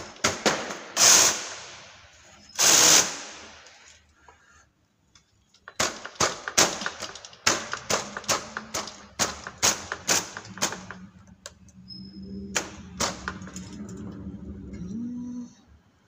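Chunky knitting machine carriage being worked along the metal needle bed. First come two loud scraping rasps, then a run of sharp metallic clicks, about three a second, for some five seconds. The carriage was sticking, which the knitter puts down to the needles selected for a 3-by-1 pattern.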